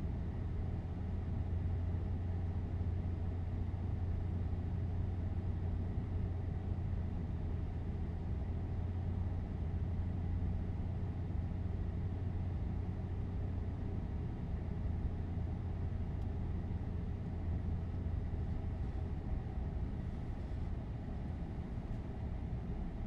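Steady low hum and rumble on the flight deck of a Boeing 747-8 taxiing after landing, from its idling engines and cockpit air systems.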